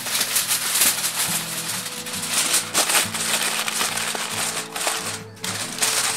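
Aluminium foil crinkling and crackling as hands fold and press it around a large joint of meat, over background music.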